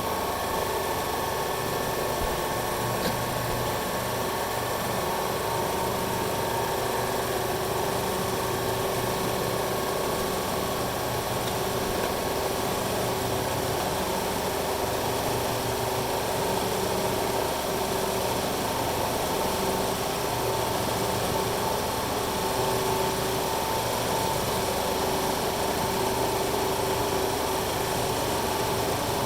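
BRP-1 oilless piston recovery pump and its electric drive motor running steadily, pumping up pressure against a sealed test system, with a steady hum and whine.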